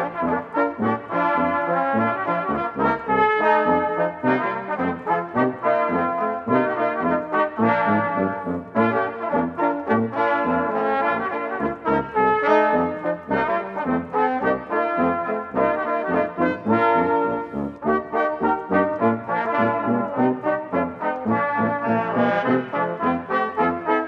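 Small silver-band brass ensemble, led by cornet, playing a lively seasonal tune.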